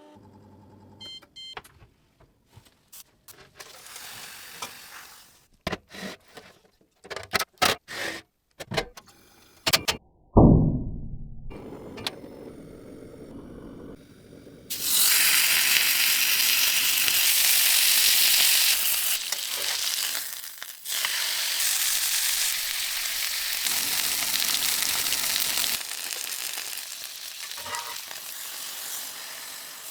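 Food or oil sizzling in a skillet: a loud, even hiss that sets in about halfway through and eases somewhat near the end. Before it come scattered clicks and knocks and one sharp thump with a falling tone.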